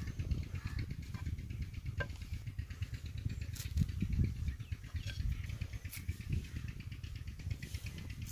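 Outdoor field ambience: wind rumbling on the microphone under a fast, even, high-pitched insect trill, with a few small snaps as fresh coriander stems are cut with a knife.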